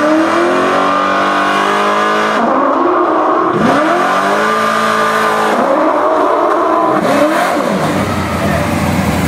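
Hot-rodded Chevrolet pickup drill truck accelerating hard, its engine revving loudly, with the revs climbing and falling back several times.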